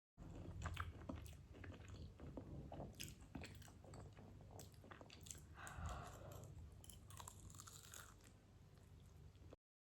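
Faint close-up chewing and crunching of food, with irregular crisp crackles and bites over a low hum. It cuts off suddenly near the end.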